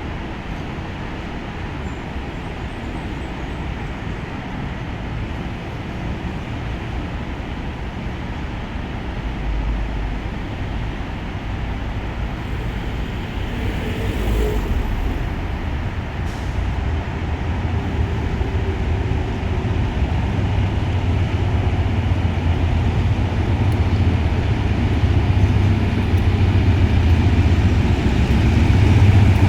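Diesel locomotive of a freight train rumbling with a steady low drone, growing slowly louder as it comes closer.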